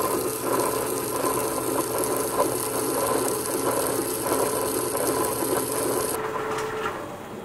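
Stone melanger refining liquid chocolate, its stone rollers running against the stone base in a steel bowl: a steady mechanical rattle over a hum. The sound drops away near the end.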